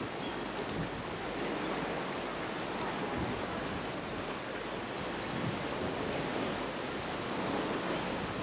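Steady outdoor harbour ambience: an even rush of wind and distant water with no distinct events.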